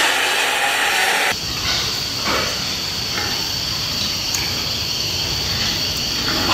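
Steady hissing background noise inside a pig barn, with a faint high whine. The sound changes abruptly about a second in, becoming fuller and lower.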